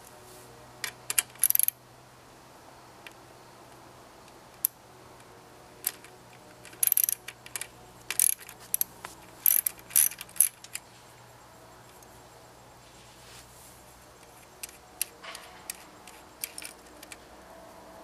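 Metal clicks and clinks in several short clusters from hands working the small hardware that joins the matching-network coil's lead to the stainless steel radial plate at the base of a vertical antenna, disconnecting the coil.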